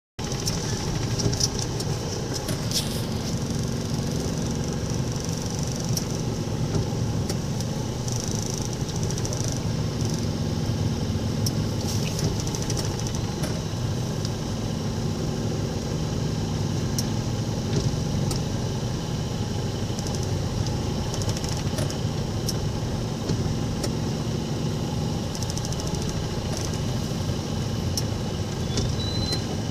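Motor vehicle engines running steadily in road traffic, a low rumble with scattered clicks and knocks.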